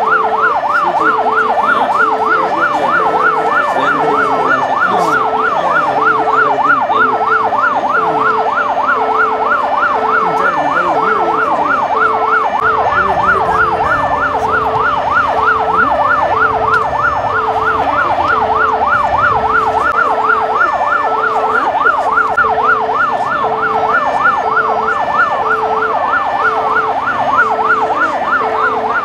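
Electronic emergency vehicle siren in a fast yelp, rising and falling several times a second, with a second tone beeping about once a second.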